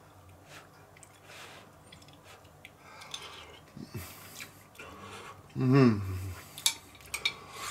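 A spoon scraping and clinking on a plate during eating, with a short wavering 'mmm' hum from the eater about five and a half seconds in, the loudest sound; two sharp spoon-on-plate clicks follow.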